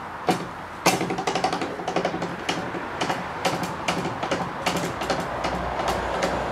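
Metal ticking and rattling from the crown-guard height-adjustment crank on a Wadkin circular dimension saw as it is wound: a single click, then from about a second in a fast, uneven run of ticks, over a steady machine hum.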